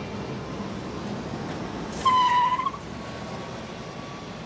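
City street traffic ambience, a steady wash of passing-car noise. About two seconds in comes one short, loud, high tone lasting under a second.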